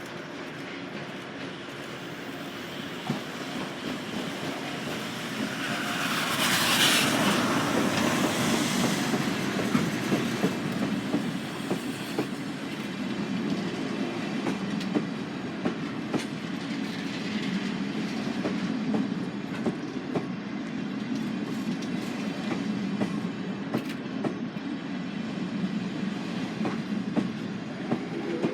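Train running on the rails, a steady rumble with wheels clicking over rail joints; a louder hiss swells about seven seconds in and fades over a few seconds.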